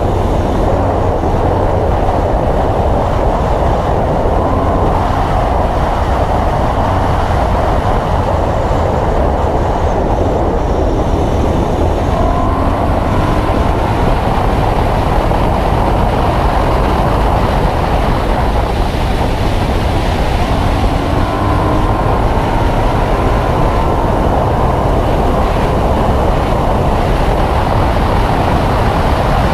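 BMW E92 M3's 4.0-litre V8 with Akrapovic exhaust running at high revs under full throttle on track. It sits largely under a steady, dense rumble of wind and road noise at speed.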